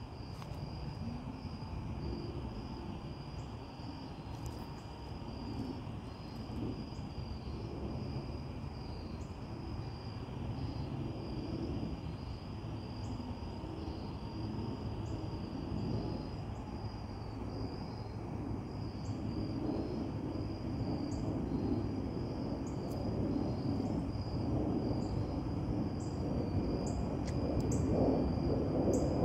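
Steady, high-pitched chorus of insects, over a low rumble that grows louder near the end.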